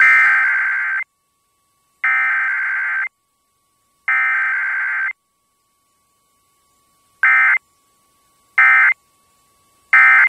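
Emergency Alert System SAME digital data bursts: the header sent three times as roughly one-second warbling bursts a second apart, then the three short end-of-message bursts, with no attention tone or voice message in between, the pattern of a Required Weekly Test.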